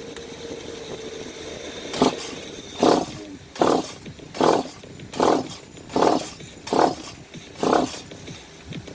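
Echo CS-520 chainsaw's recoil starter pulled eight times in quick succession, a little under a second apart, the engine turning over without catching. The owner takes the hard starting for a flooded engine with too much fuel in it and a dirty carburetor.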